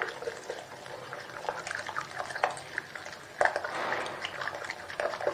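Fork beating raw eggs with chopped tomato, green onion and green chillies in a glass bowl: irregular clinks and scrapes of metal on glass with wet stirring, busiest a little past the middle.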